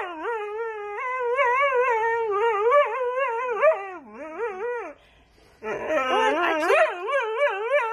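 Dog vocalising in a long, wavering howl-like whine, its pitch wobbling up and down as if yodelling or 'talking'. It breaks off briefly about five seconds in, then starts again.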